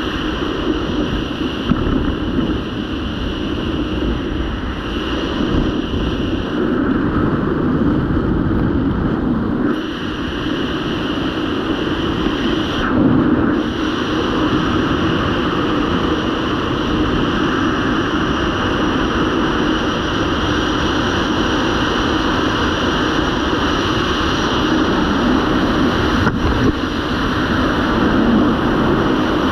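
Steady wind rushing over a camera's microphone during flight under a parachute canopy.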